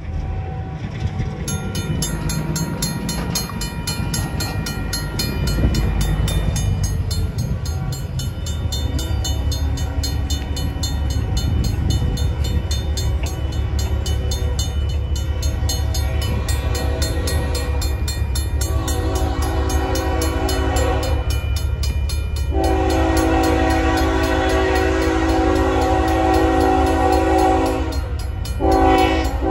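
Safetran mechanical crossing bell ringing with rapid, even strokes as a Union Pacific locomotive horn approaches: one long blast about two-thirds of the way through, then a louder, longer blast near the end. A low rumble runs underneath.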